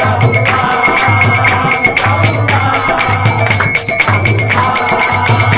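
Devotional kirtan music: metal hand percussion jangling in a fast, steady beat over a pulsing drum, with chanting voices singing in between.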